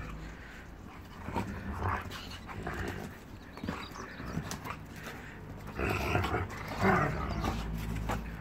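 A German Shepherd and a young Akita play-fighting, with growling in irregular bursts that is loudest about six to seven seconds in.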